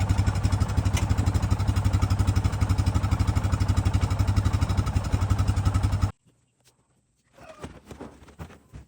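Small engine running with a rapid, even firing beat, then cutting off suddenly about six seconds in.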